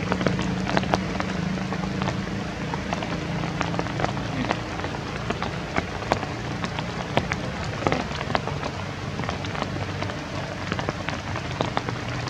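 Steady patter with many irregular sharp ticks, like raindrops falling on leaves and ground, over a low hum that fades about five seconds in and returns near the end.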